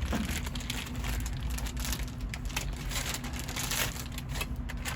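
Scattered small clicks and crinkling, handling noise of parts or packaging being moved about.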